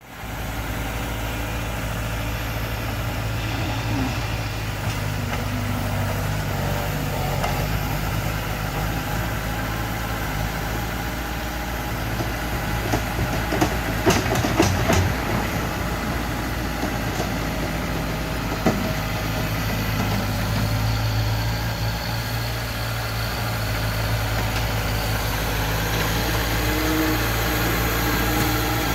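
Mini bulldozer's engine running steadily while it works dirt, with a cluster of sharp knocks about halfway through and a single knock a few seconds later.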